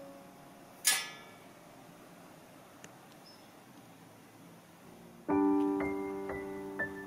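Solo piano background music: notes fade out, a single sharp click with a brief ringing about a second in, then a quiet stretch until a piano chord enters about five seconds in, followed by single high notes about twice a second.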